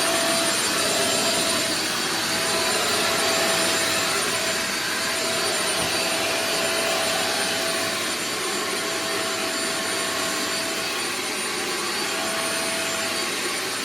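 Kitfort KT-555 upright vacuum and steam mop running steadily while vacuuming and steaming the floor at once: an even rush of air with a steady high whine.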